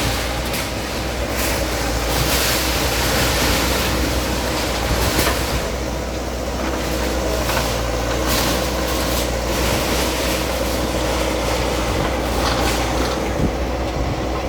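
Bulldozer's diesel engine running steadily, with a few short knocks and clatters of demolition.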